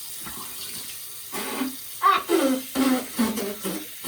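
Water splashing during face washing, then a woman's wordless vocal sounds, pitched and wavering, from about a second and a half in.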